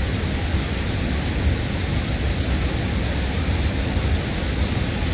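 Wind buffeting the microphone in a steady, uneven low rumble over a constant rushing hiss of flowing river water.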